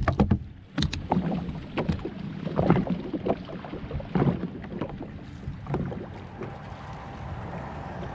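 Irregular knocks and light thumps, roughly one a second, with water sloshing against the hull of a Sea-Doo FishPro personal watercraft sitting on the water.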